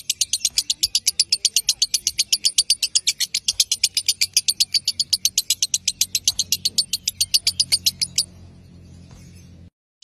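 Lovebird's long ngekek: a rapid, evenly repeated high-pitched chatter of about ten notes a second that stops abruptly about eight seconds in.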